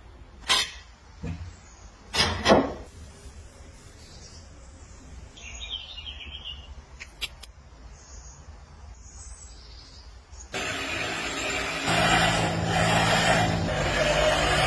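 A few sharp knocks, then about ten seconds in a steady motor-like running noise starts suddenly and grows louder a second or so later.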